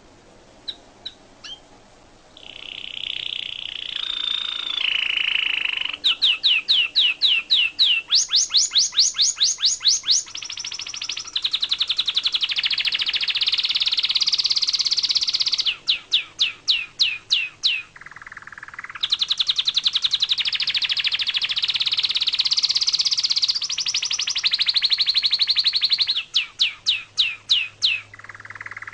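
A small songbird singing close by: runs of quick rising notes, about four a second, alternating with long buzzy trills, with short pauses between phrases.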